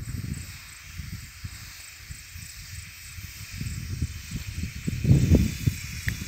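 Steady hiss of a tractor-mounted sprayer's spray jet, with wind buffeting the microphone in gusts that grow stronger near the end.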